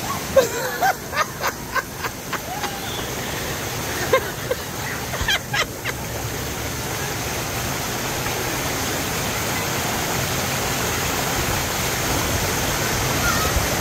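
Steady rush of water running down the water slides and into the runout lanes, growing slightly louder toward the end. In the first half there are a few short clicks and brief faint voices.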